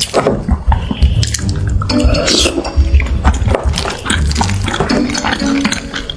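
Dishes and cutlery clinking during a meal, over background music with a steady bass.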